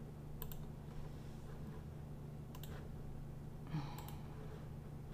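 Computer mouse clicking three times, each a close double click, over a steady low hum.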